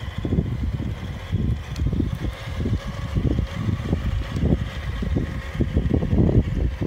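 Wind buffeting the microphone in irregular gusty surges. Underneath it runs a faint steady whine.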